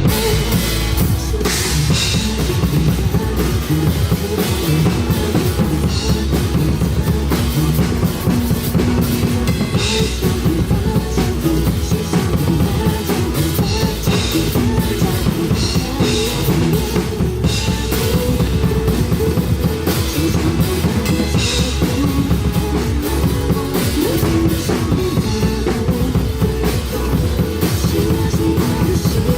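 Drum kit played live with bass drum and snare over a backing track, giving a steady rock beat.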